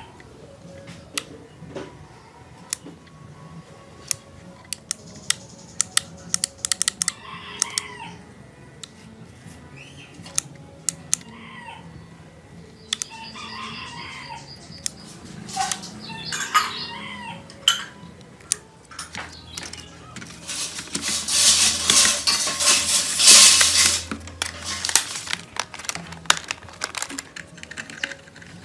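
Small sharp clicks and taps from handling the plastic parts and tools of a toy remote-control car, with chickens calling and a rooster crowing in the background. A few seconds past the middle, a loud rushing noise lasts about four seconds.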